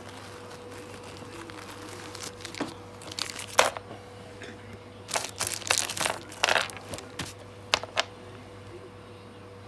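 Clear plastic bag crinkling and rustling in short irregular bursts as soldering iron tips are unpacked, then two sharp clicks near the end as the metal tips are set down on a wooden bench. A faint steady hum runs underneath.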